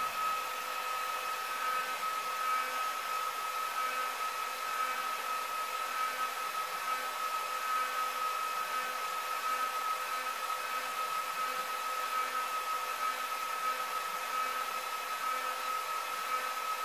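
Cooling fans of a laser head's cooler running steadily: a constant whir of moving air with a steady high-pitched whine over it.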